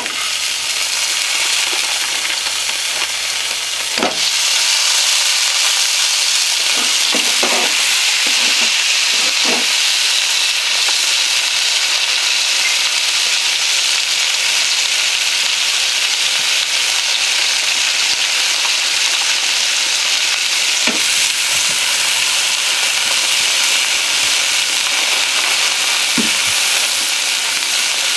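Jalapeno cheddar smoked sausages sizzling steadily in a hot pan, the sizzle setting in at once as they start to cook, with a few short knocks and pops now and then.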